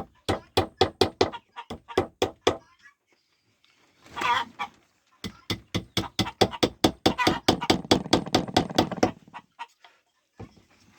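Rapid tapping with a small wooden block on freshly glued wooden pieces to keep them from coming unglued, about five or six knocks a second in two runs. In the pause between the runs a chicken clucks.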